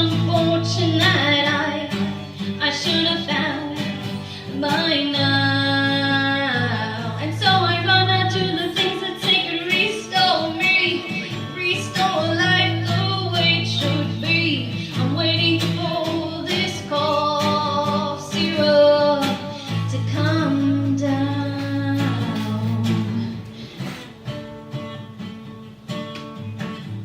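A woman singing live over a strummed guitar. The voice drops out about 23 seconds in, leaving the guitar on its own, quieter.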